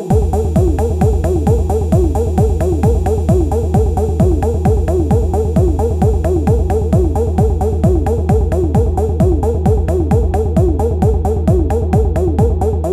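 Elektron Analog Rytm drum machine playing an improvised techno pattern. A heavy low bass comes in right at the start and cuts out at the very end, under a fast repeating figure of short pitched blips and ticking hi-hats.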